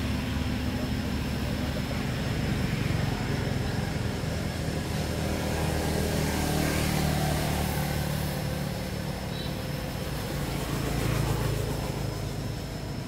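A motor vehicle engine running steadily, its low hum swelling and easing over several seconds, with a thin steady high whine throughout.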